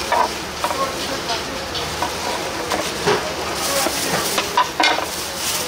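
Steady hissing with scattered sharp clicks and clatter, as of utensils or food being handled, the loudest knocks near the end.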